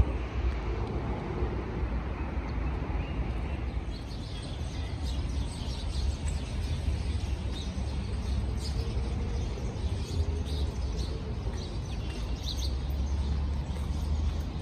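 Outdoor street ambience: a steady low rumble of distant traffic, with birds chirping here and there from about four seconds in.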